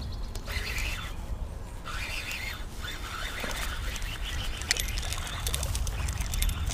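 Birds chirping over a steady low rumble, with a few sharp clicks in the second half.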